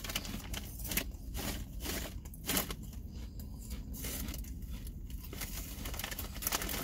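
Crisp potato chips crunching as they are chewed, in irregular sharp crackles.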